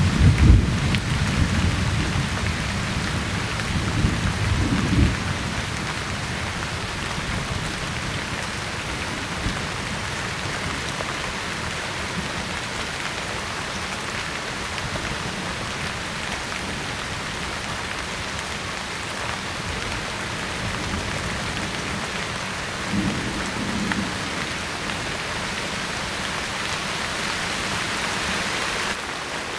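Steady rain falling, an even hiss throughout, with low rumbling in the first five seconds.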